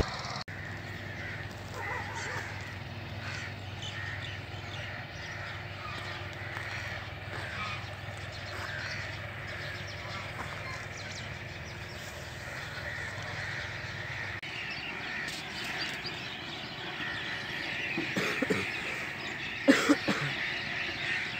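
Birds calling outdoors, many short calls scattered throughout, with a few louder calls near the end. A faint low steady hum underneath stops about two-thirds of the way through.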